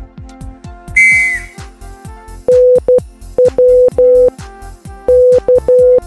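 Morse code practice tones: one steady mid-pitched beep keyed on and off in dots and dashes, starting about two and a half seconds in, over electronic background music with a steady beat. About a second in, a short bright whistle-like tone drops away at its end.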